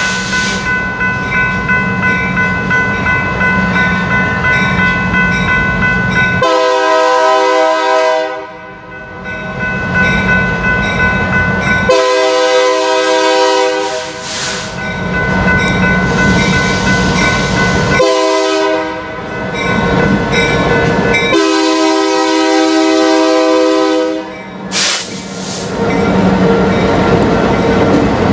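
A diesel freight locomotive's multi-chime air horn blows four blasts, long, long, short, long: the standard warning for a grade crossing. Under the horn runs the steady rumble of the diesel engines as the train approaches and passes, loudest near the end when the locomotives go by.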